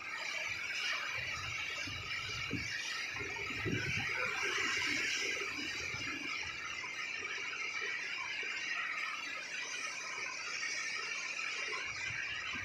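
Typhoon wind and rough sea: a steady high hiss of wind and breaking waves, with gusts buffeting the microphone every second or two.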